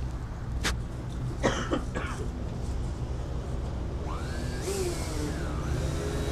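A person coughing, two short bursts about a second and a half in, over a steady low rumble.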